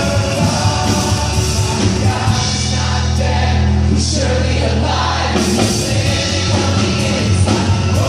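Live worship music: a band with a strong bass line plays while a crowd sings along, with a long held bass note in the middle.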